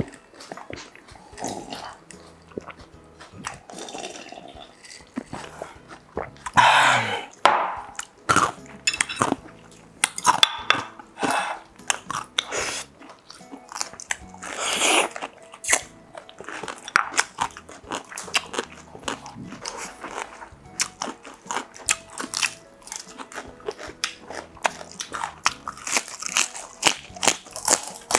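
Close-miked eating: crunchy food being bitten and chewed, a dense, irregular run of sharp crunches.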